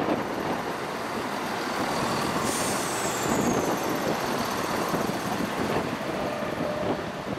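CrossCountry Class 170 Turbostar diesel multiple unit running past along the platform: its diesel engines running under the floor and its wheels on the rails. About two and a half seconds in, a high whine starts and slides down in pitch.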